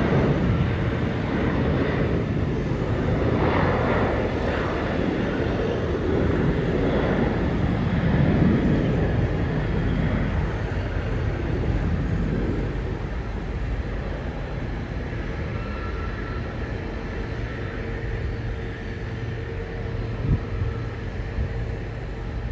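Boeing 737-700's twin CFM56-7B turbofan engines at takeoff thrust during the takeoff roll: a steady, heavy rushing jet noise. It is loudest over the first half and gradually fades as the airliner runs away down the runway toward liftoff.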